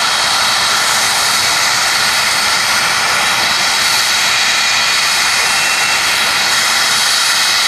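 UH-60 Black Hawk helicopter's twin turboshaft engines running on the ground: a loud, steady turbine whine over a rushing noise, holding even throughout.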